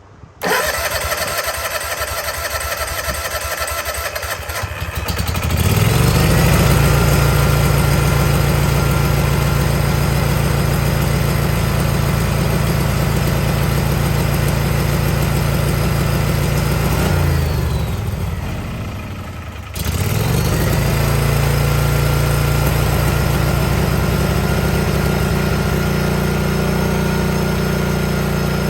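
Small gasoline engine on a DR power-equipment machine, electric-started cold with the choke on after sitting for over a year. The starter cranks for about five seconds before the engine catches, then it runs steadily. About seventeen seconds in it slows almost to a stop, then picks back up about three seconds later and runs on.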